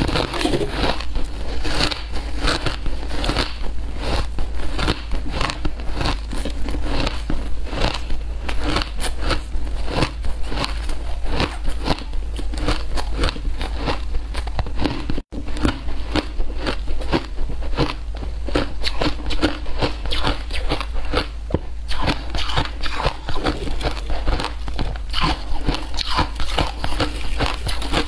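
Shaved ice being chewed, heard close up: a continuous run of crisp crunches that cuts out briefly about halfway through.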